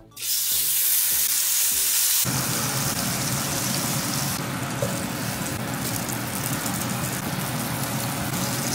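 Onion slices cut into thick discs sizzling as they pan-fry. The sizzle grows fuller about two seconds in.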